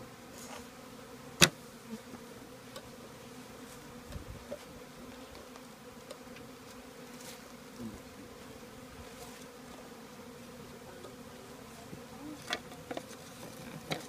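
Honeybees from a package buzzing steadily in a low hum. About a second and a half in there is one sharp, loud knock as the bee package is bumped down to shake the bees to the bottom, and a few lighter knocks follow near the end.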